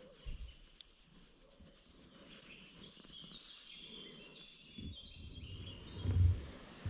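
Small birds singing, short high chirping phrases over a quiet background, with a couple of low bumps, the strongest about six seconds in.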